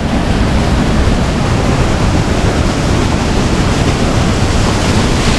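Steady, loud rush of a waterfall and cascading water.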